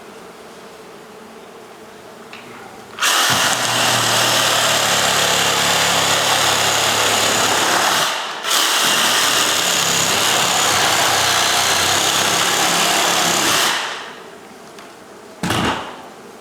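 A corded electric tool motor running loud and steady for two long stretches with a brief stop between them, then a short burst near the end.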